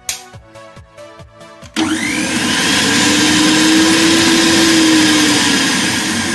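A switch clicks, then about two seconds in a kitchen mixer grinder's electric motor starts up with a rising whine and runs steadily at full speed, showing that the socket it is plugged into is live.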